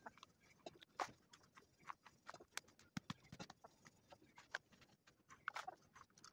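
Faint, irregular crunching and tapping of hands scooping soil into thin plastic cups and pressing it down, with small crinkles and taps from the plastic.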